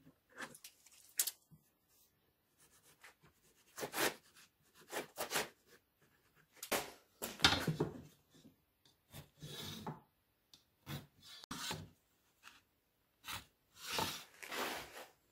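Pencil scratching marking lines onto a pine board, with a steel square and folding rule being slid across and set down on the wood: a string of short, irregular scratching and rubbing strokes with pauses between them.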